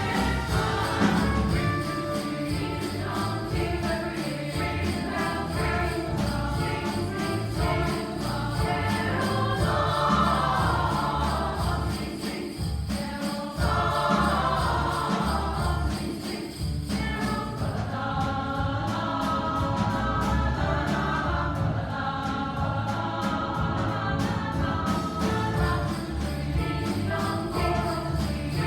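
Choir singing, with jingle bells shaken in a steady beat over a low accompaniment.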